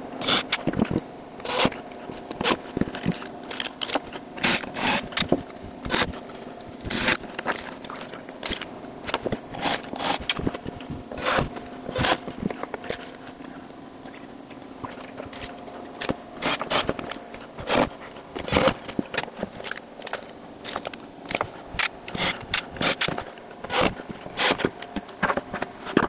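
Irregular sharp clicks and scrapes of small metal hardware and tools being handled on a wooden workbench, over a faint steady hum.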